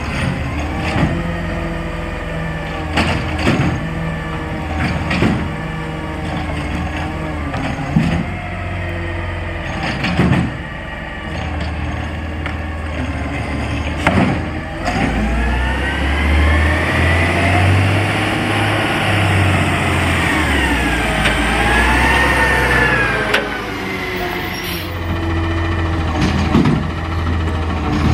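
A 2015 Autocar ACX refuse truck with a McNeilus ZR automated side-loader arm runs while the arm lifts and empties a green-waste cart and sets it back down, with several sharp clunks of cart and arm. About fifteen seconds in, the engine revs up as the truck pulls away, its pitch rising and falling for several seconds.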